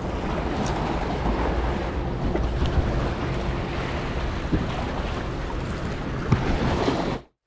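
Wind buffeting the microphone over the wash of sea waves on the shore, with a few faint clicks; the sound cuts off suddenly near the end.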